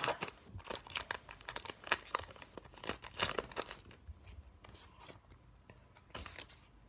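Foil wrapper of a Pokémon booster pack being torn open and crinkled by hand. The crackling is dense for the first three and a half seconds, then thins to sparse, quieter rustles as the cards come out.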